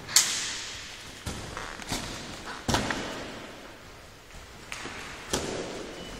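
A string of sharp thumps and slaps, about six in all at uneven intervals, the first the loudest, each ringing out briefly in a reverberant gym hall.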